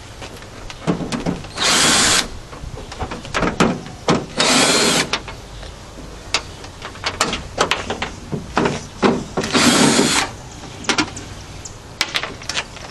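Cordless drill backing out the screws that hold a CRT television's plastic back shell, run in three short bursts of under a second each, with small sharp clicks of screws and handling in between.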